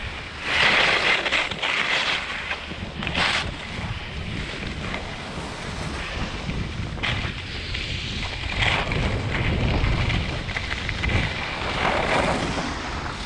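Wind rushing and buffeting over the camera's microphone, a steady low rumble with swells of hiss coming and going every second or few.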